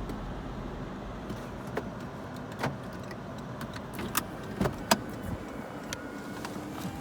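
Inside a car pulling over to stop: a steady low engine and road noise, with a handful of irregular clicks and knocks from inside the cabin, the sharpest about five seconds in.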